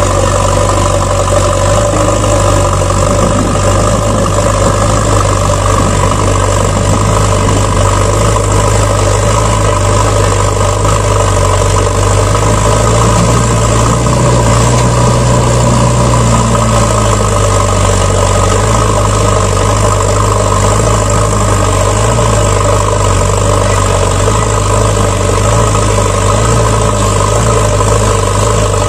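Truck engine idling steadily, a dubbed sound effect rather than anything the toys make. Its pitch lifts slightly in the middle and settles back.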